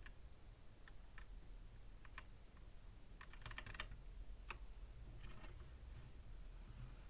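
Faint typing on an AOC GK500 mechanical keyboard with Outemu Red linear switches: scattered single key presses, then a quick run of several keystrokes about three seconds in.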